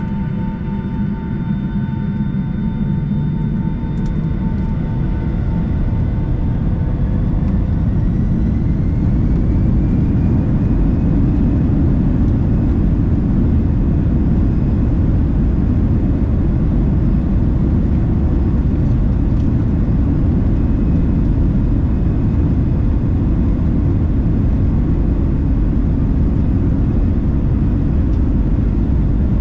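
Boeing 757-300 jet engines spooling up, heard from a cabin window seat over the wing. A whine rises in pitch over the first ten seconds or so, then settles into a loud, steady roar with rumble: takeoff thrust as the airliner begins its takeoff roll.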